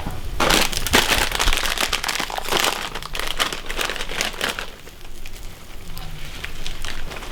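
Plastic bag of pork rinds crinkling and rustling as it is handled: dense crackly noise that eases off about halfway through and picks up again near the end.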